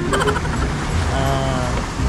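Fishing boat's engine running steadily under way, a low rumble mixed with wind and water noise.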